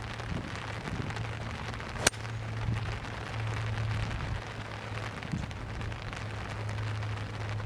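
One sharp click of a Ping G 4-hybrid striking a golf ball off the fairway, about two seconds in, over a steady hiss of rain and a low steady hum.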